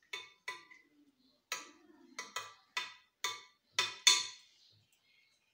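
Metal utensil clinking and scraping against a cut-glass dish while spreading custard: about nine sharp, irregular clinks, the loudest about four seconds in.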